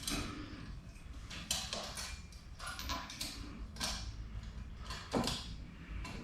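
Tools clattering as someone rummages through a toolbox for a socket: a string of irregular clicks and knocks, about seven in all.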